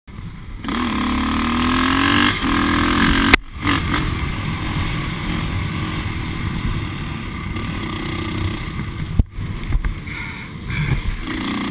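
Dirt bike engine being ridden on a trail: it revs up with a rising pitch over the first couple of seconds, then runs steadily at speed. A sharp click a little over three seconds in, and the sound briefly cuts out twice.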